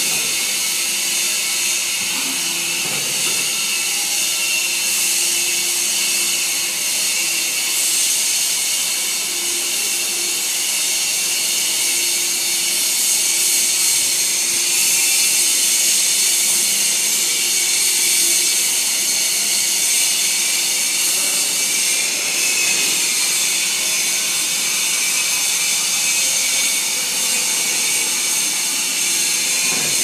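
Hydraulic metal swarf baler running: its electric motor and hydraulic pump give a steady hiss with a faint hum underneath.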